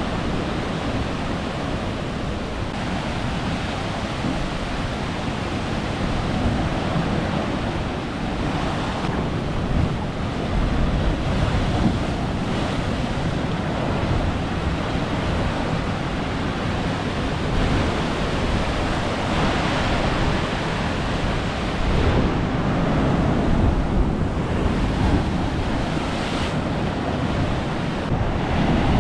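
Ocean surf surging and breaking against a rocky shore platform, a steady wash that swells and eases every few seconds, with wind buffeting the microphone.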